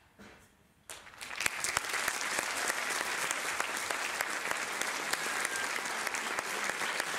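An audience breaks into applause about a second in, then keeps clapping steadily.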